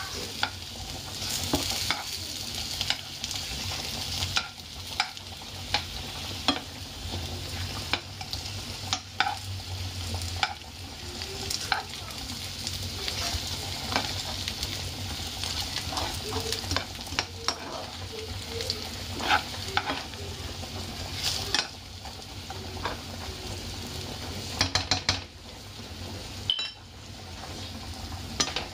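Chicken wings sizzling in a frying pan of butter and honey while a metal spoon stirs them, scraping and tapping against the pan. Irregular clicks over a steady sizzle, with a quick flurry of taps near the end.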